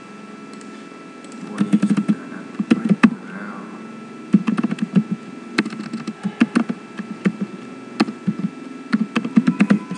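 Typing on a computer keyboard: clusters of quick keystrokes with short pauses between them, over a faint steady hum.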